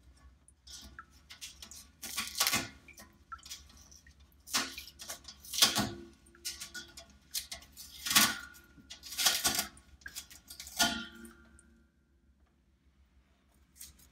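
Cheesecloth and strainer being handled on a speckled enamel stock pot: a series of about six short rustles and light knocks spread over some ten seconds, dying away about two seconds before the end.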